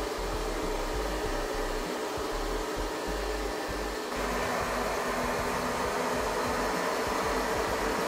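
Lefant M1 robot vacuum running: a steady whirring hum of its suction fan while it drives and cleans. It gets a little louder and brighter about four seconds in.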